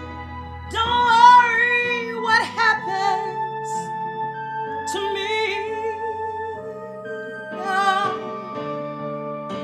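A woman singing over sustained keyboard chords, in three short phrases with wide vibrato, the first and loudest near the start.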